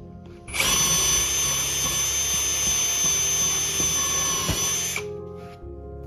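Cordless drill running at a steady speed as a twist bit bores a hole through a plywood panel: a steady high whine that starts about half a second in and cuts off about five seconds in.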